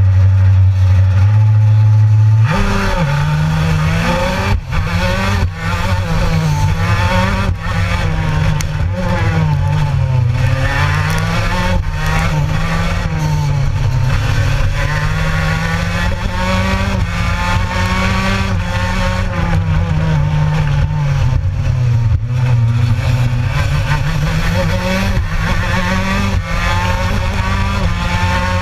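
Onboard racing kart engine with Gilera engines: a steady low engine note for the first couple of seconds, then the engine opens up at the race start and its revs rise and fall again and again as it accelerates out of and brakes into the corners.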